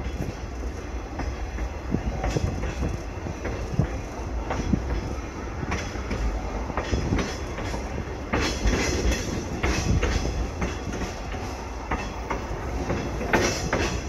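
Caboose wheels rolling over old jointed track: a steady low rumble with irregular clicks and clunks from the rail joints, growing into louder clatter about eight and a half seconds in and again near the end.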